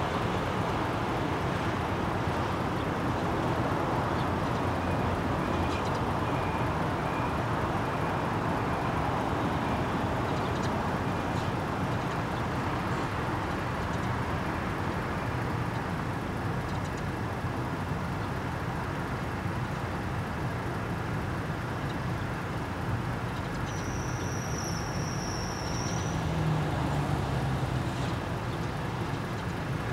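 Steady road traffic noise from passing cars and vans, with a short high-pitched squeal lasting about two seconds and a swelling engine hum near the end.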